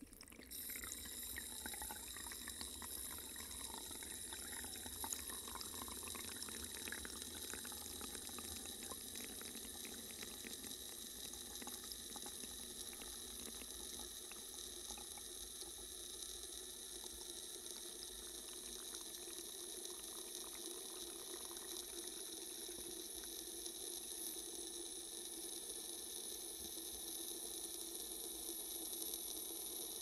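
Steady rushing water inside the water-filled pressure chamber, with faint crackles during the first several seconds and a steady high whine over it.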